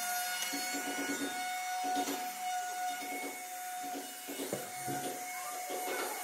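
DeWalt compact plunge router running with a steady whine, broken by repeated short bursts as the bit is plunged into a wooden panel to cut round holes.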